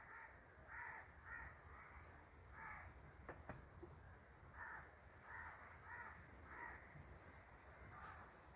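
Faint bird calls, short calls repeating in small groups, over near silence, with a faint click about three seconds in.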